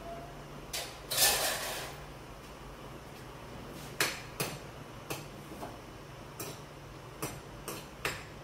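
Metal spoon knocking and scraping against a black wok (kadai) while stirring boiled grated bottle gourd, a string of sharp clicks from about four seconds in. A louder clatter comes about a second in.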